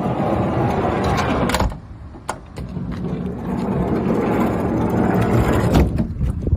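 Toyota 100-series HiAce manual sliding door rattling, a dense clattering with sharp clicks about one and a half seconds in, again after two seconds, and near the end.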